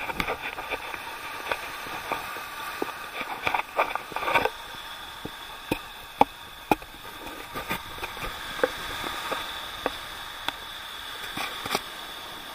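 Irregular sharp clicks and taps of a hand-held camera being jostled on a walking horse, over a steady hiss of surf.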